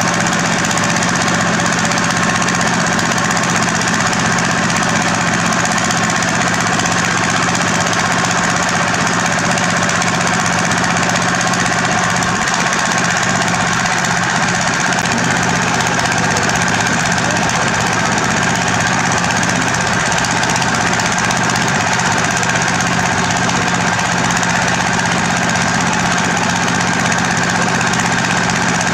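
Diesel engine of heavy construction machinery running steadily under load, with a constant hum and a rough, clattering mechanical noise.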